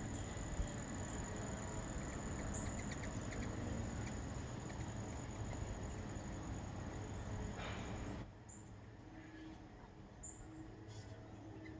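Steady backyard ambience: a low outdoor rumble under a continuous high-pitched whine, both dropping away abruptly about eight seconds in. A few faint short chirps come around the third second.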